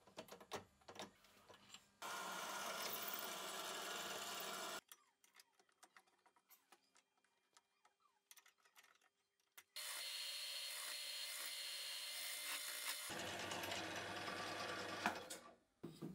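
Drill press boring into a steel sprocket: two stretches of steady cutting noise a few seconds each, with a quieter spell of light clicks between them and a sharp knock near the end.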